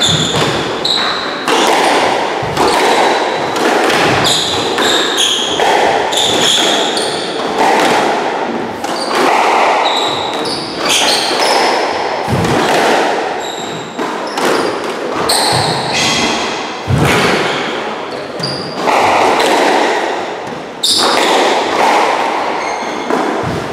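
Squash rally: the ball smacking off rackets and the walls every second or so, with rubber-soled court shoes squeaking on the wooden floor as the players lunge and turn, all ringing in the enclosed court.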